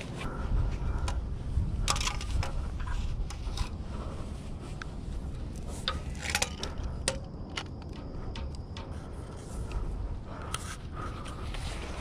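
Irregular clicks, knocks and scrapes of hands and gear against the steel members of a radio-antenna tower as a climber moves on it, over a steady low rumble.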